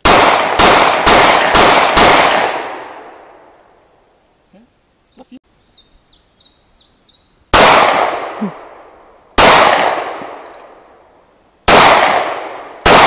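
H&K P30L pistol firing: five quick shots about half a second apart, then, after a pause with faint clicks, four more single shots one to two seconds apart. Each shot is followed by a long echoing decay.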